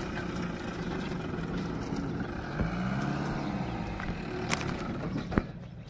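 Mahindra Bolero Maxx Truck pickup's diesel engine pulling the truck across soft ploughed field soil, its pitch rising and falling around the middle. Two sharp clicks come near the end, and the engine sound then drops away.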